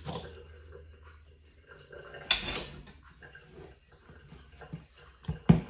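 Kitchen handling sounds as drained fruit chunks are tipped from a metal mesh sieve into a plastic mixing bowl. About two seconds in there is a sharp metallic clatter that rings briefly, as the sieve is knocked or set down, and near the end two dull knocks.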